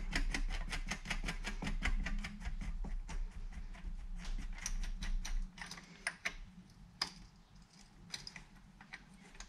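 Rapid, regular metallic ticking, about eight clicks a second, from hand work at the rear hub of a child's 16-inch bike wheel as the brake bracket and its axle nut go on. After about five seconds it thins to scattered single clicks.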